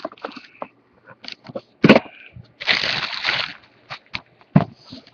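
Plastic wrapping on a laptop crinkling and rustling as it is handled, with a dense burst of crinkling a little before the middle. Two thumps, one about two seconds in and one near the end.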